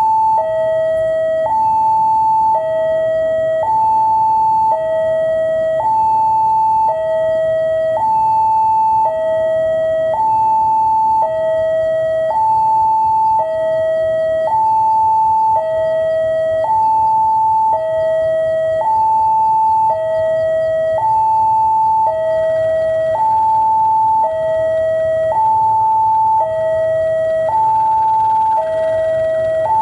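Electronic railway warning alarm sounding a steady two-tone high-low pattern, each tone held about a second, as a train approaches. Underneath is the low rumble of the approaching CC 203 diesel-electric locomotive.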